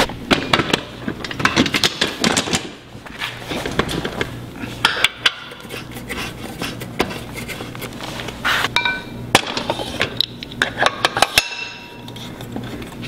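Repeated metal clanks, clicks and knocks of an arm curl attachment being locked into a steel weight-bench frame with its lock pin, and a weight plate slid onto the loading peg. A few short ringing metal-on-metal clinks come in the second half.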